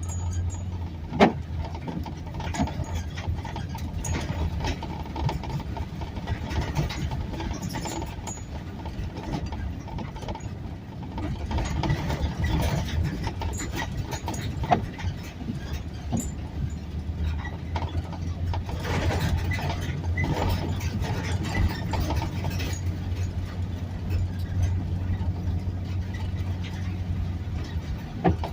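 A vehicle's engine running steadily with a low hum, with scattered small clicks and knocks and one sharp click about a second in.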